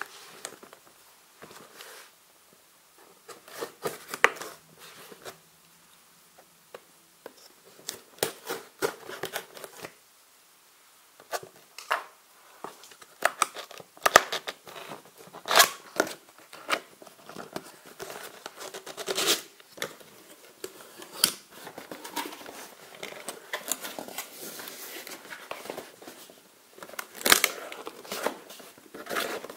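Cardboard retail box being opened and handled by hand: an irregular run of scrapes, taps and rustles as flaps and a cardboard insert are worked open, with sharper clicks now and then.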